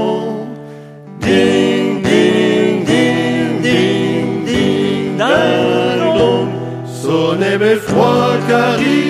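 Male vocal trio singing "ding" over and over in harmony, imitating belfry bells, with acoustic guitar accompaniment. After a brief lull about a second in, the sung "dings" come about once a second, each sharply struck and then fading like a bell.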